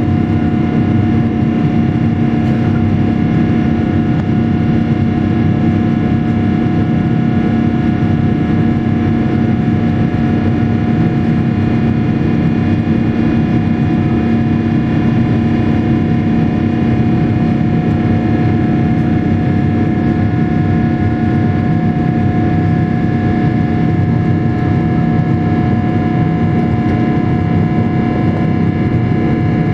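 Steady jet-engine drone of a Boeing 777-300ER's GE90 turbofans heard from inside the cabin: a constant low rumble with several steady whining tones on top, holding the same level throughout.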